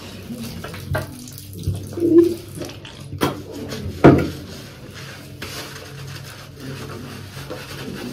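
Plastic bottles handled and set down at the bathtub: a few sharp knocks and clicks, the loudest about four seconds in, over a faint steady hum.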